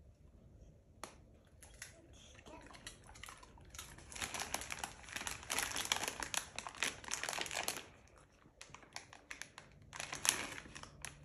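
Plastic snack pouch of popcorn crinkling and rustling as a small hand rummages inside it. The crinkling is loudest for about four seconds in the middle and comes back briefly near the end.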